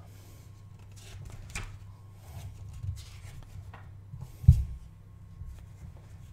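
Paper pages of a CD album's photo booklet rustling and flipping as it is leafed through by hand, with one dull thump about four and a half seconds in.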